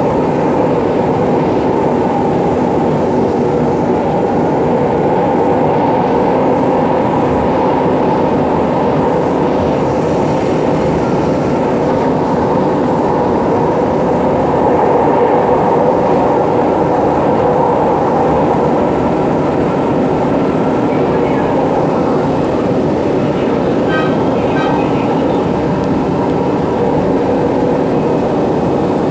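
Cabin running noise of a ČKD Tatra RT8D5M light-rail car in motion: a steady rumble of wheels on rail with the low hum of the traction drive. A faint steady tone comes in around the middle, and a few light ticks sound near the end.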